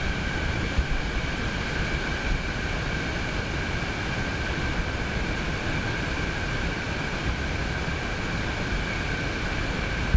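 Steady rush of wind and surf, with a constant high two-tone whine running over it.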